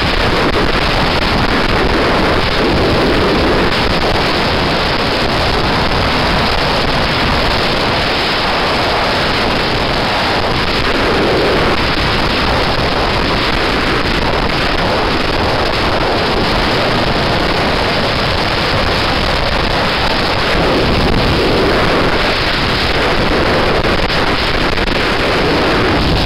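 Steady wind rush on the microphone of a motorcycle riding at highway speed, with the bike's running noise beneath it.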